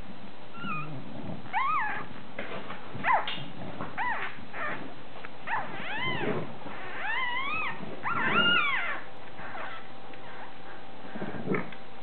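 Newborn British bulldog puppies squeaking and whimpering while they nurse: short high squeaks every second or so, each rising and then falling in pitch, with a lull near the end.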